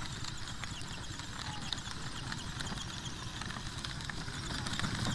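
Hard plastic wheels of a kids' battery-powered ride-on motorbike rattling and crunching over gritty dirt as it drives along, a steady run of small clicks over a low rumble.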